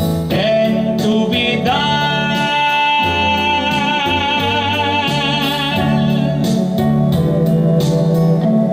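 A small band plays a romantic ballad. A singer holds one long note with vibrato over guitar and bass, then the accompaniment carries on alone.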